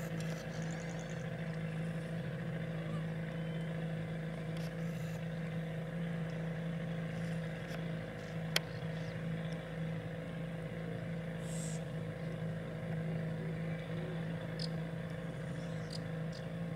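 Outboard motor running at a steady speed with a boat under way, a constant drone. A single sharp click sounds about eight and a half seconds in.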